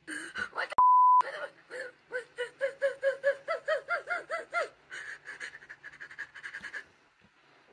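A short, loud censor bleep, one steady tone, about a second in. Then a young woman laughs uncontrollably in rapid wheezing gasps, about five a second and rising in pitch, before trailing off into quieter breathy laughs.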